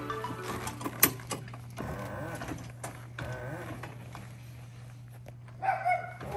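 Electric dolly's motor running with a low steady hum and a faint wavering whine as it is driven over grass under load. A short, high, voice-like call is heard near the end.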